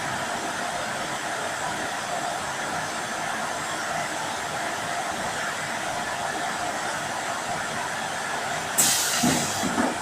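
Steady hiss of a pneumatic two-head PVC window welding machine, with a sudden sharp blast of venting air about nine seconds in, followed by a couple of low thumps.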